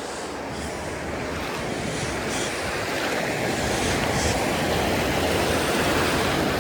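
Pacific Ocean surf washing up on the beach, a steady rush that swells louder from about halfway through as a wave comes in.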